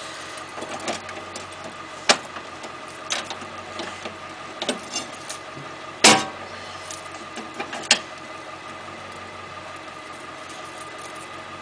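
A steady hum with a few sharp knocks and light clicks; the loudest knock comes about six seconds in.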